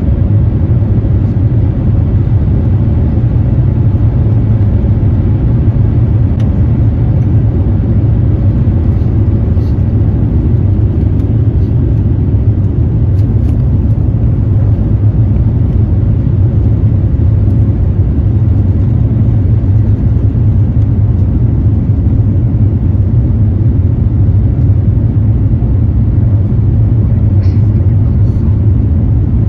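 Airbus A350-900's Rolls-Royce Trent XWB engines at takeoff thrust, heard from inside the cabin as a loud, steady, deep rumble through the takeoff and initial climb.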